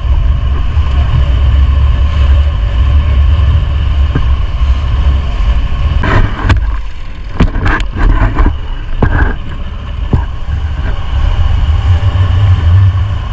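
A small open motorboat's engine running steadily under way, with a heavy low wind rumble on the microphone. About halfway through comes a run of sharp knocks and splashes as the hull hits the chop.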